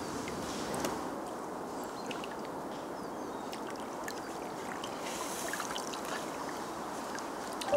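Gentle lapping and trickling of shallow pond water, with a few faint small splashes.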